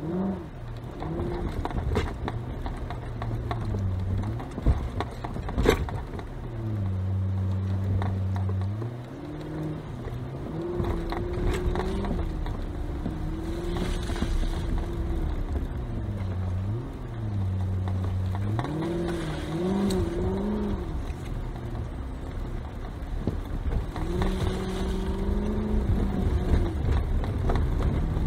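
Dodge Durango SRT's 6.4-litre HEMI V8 heard from inside the cabin, its note rising and falling as the throttle is eased on and off at low speed, over a steady rumble from rough ground, with occasional sharp knocks from the body and suspension over bumps.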